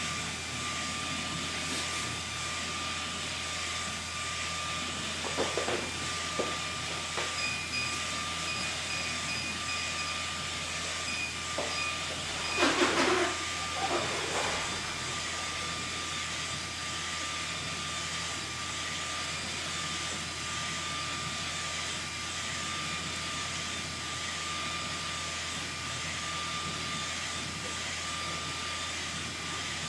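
UV flatbed inkjet printer running: a steady hiss with a constant thin whine. A few short, louder mechanical noises come about five to seven seconds in, and the loudest about thirteen seconds in.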